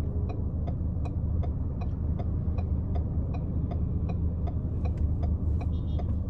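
Car turn-signal indicator ticking evenly, about three ticks a second, over the low steady hum of the idling car heard from inside the cabin.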